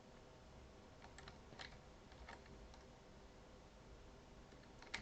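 Faint, scattered clicks of a computer mouse and keyboard over a quiet, steady room hum.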